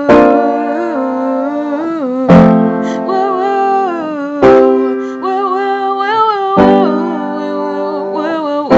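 Music: a song with a 'woo' refrain sung over sustained chords, a new chord struck about every two seconds.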